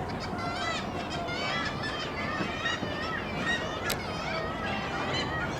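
A colony of black-legged kittiwakes calling, many overlapping, rising-and-falling cries at once, with a single sharp click about four seconds in.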